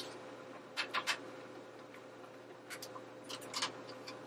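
A cooking utensil tapping against a skillet while bell pepper and onion are stirred: a few light clicks in small groups over a faint steady hum.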